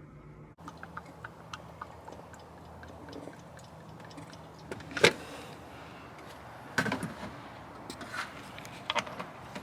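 Scattered light clicks and taps, with a few sharper knocks about five, seven and nine seconds in, the one about five seconds in the loudest, over a steady low hum.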